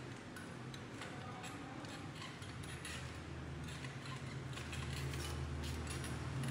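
Electric baby swing's mechanism ticking over a steady low hum that grows louder in the second half.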